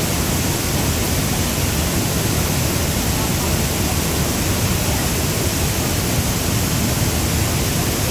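Large jungle waterfall in full rainy-season flow: a loud, steady rush of water pouring over big rocks, with no change in level.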